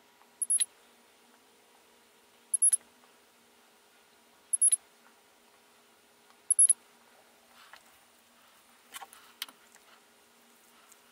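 Portable battery spot welder with a handheld pen probe firing four welds about two seconds apart, each a short high beep with a sharp snap, tacking a metal strip onto 18650 lithium-ion cells. A few lighter handling clicks follow near the end.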